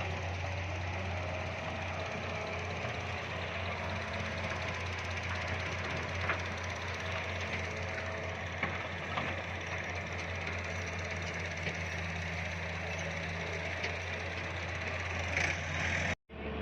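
Heavy diesel machinery engine running steadily with a low drone and a few faint clicks. The sound drops out for a moment near the end.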